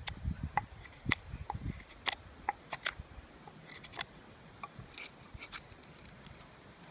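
A knife blade carving dead poplar wood, with irregular sharp snicks and cracks as chips come off. There are a few dull thumps in the first couple of seconds.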